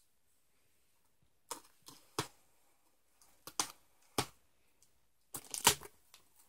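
Bubble wrap crinkling in a string of short bursts as it is handled, starting about a second and a half in; the loudest bursts come near the end.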